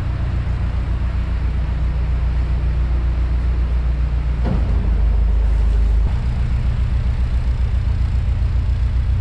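Narrowboat's diesel engine running with a steady low, pulsing chug; past the middle it grows louder for a second or so, then drops back to the even chug.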